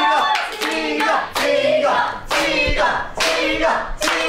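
A group of people chanting a short phrase together over and over, clapping in time, about one chant a second.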